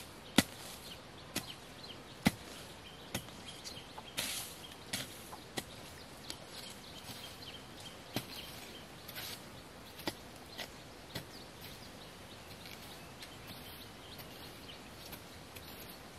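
Machete blade chopping into soil, a series of sharp, irregular strikes one to two seconds apart, the loudest near the start, thinning out after about eleven seconds.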